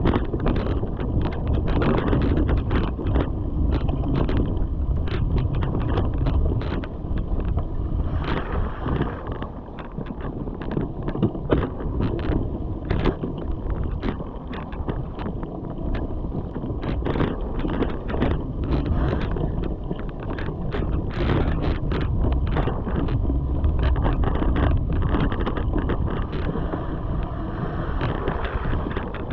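Mountain bike riding over leaf-covered forest singletrack: tyres rolling over leaves and roots, with frequent rattles and knocks from the bike, and wind rushing over the camera's microphone.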